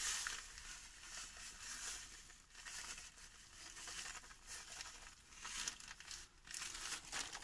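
Faint crinkling of a plastic bag as coarse salt is poured and shaken from it over a piece of pork, covering the meat for dry-curing. Near the end the bag rustles as it is squeezed and folded.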